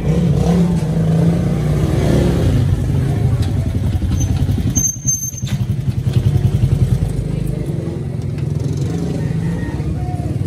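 An engine running steadily with a low hum, throbbing faster for a couple of seconds in the middle.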